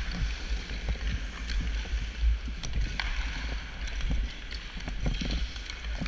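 Sled hockey sled gliding and scraping over the ice, with scattered sharp clicks and taps of sticks and puck on the ice, over a steady low rumble.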